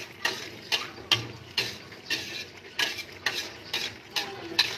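Metal spatula scraping and knocking around an aluminium wok, about two strokes a second, as a coconut-milk stew is stirred to keep the coconut milk from curdling.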